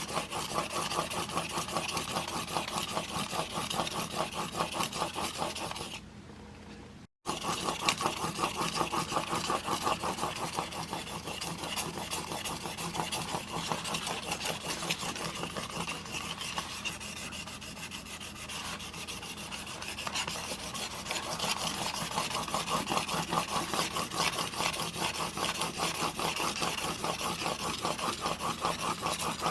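Steel broadhead blade in a roller sharpening guide being stroked back and forth on a 1200-grit diamond plate: rapid, even scraping strokes that raise a burr on the edge. The strokes drop away briefly about six seconds in, then carry on.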